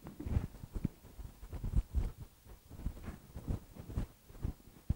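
Whiteboard eraser wiping a whiteboard clean in quick, irregular strokes, about two to three a second, each a soft rubbing swish with a dull thump.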